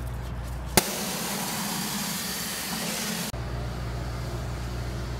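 Steady low mechanical hum of a self-serve car wash bay. About a second in, a sharp click gives way to an even hiss for about two and a half seconds, then the hum returns.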